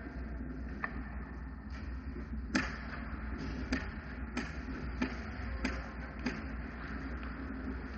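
Sharp clacks of hockey sticks and puck on the ice during play, about seven scattered hits with the loudest about two and a half seconds in, over a steady low hum.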